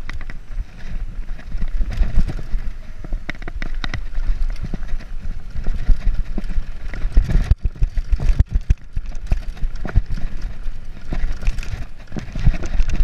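Mountain bike clattering and knocking irregularly as it rides fast over a rough dirt forest trail, over a steady low rumble.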